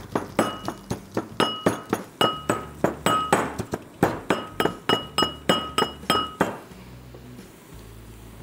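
Brass mortar and pestle pounding ginger, garlic and green chillies, about three strikes a second, each strike making the bowl ring with a clear metallic tone. The pounding stops about six and a half seconds in.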